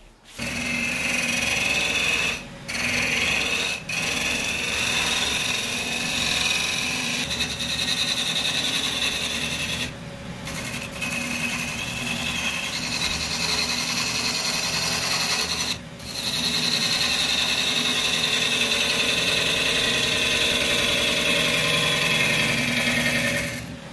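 Gouge cutting a spinning pine blank on a wood lathe: a steady hiss as long shavings peel off the wood. It breaks off for a moment four times.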